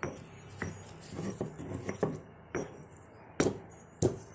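Softened, pan-wilted betel, karpuravalli and basil leaves being smashed with a hard utensil. It knocks against the dish in short, irregular strikes about every half second to second, with the loudest strikes near the end.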